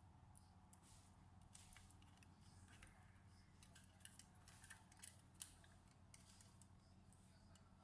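Faint, scattered small clicks and scrapes of hands working on a laptop's plastic and metal parts, over a steady low hum; the sharpest click comes about five and a half seconds in.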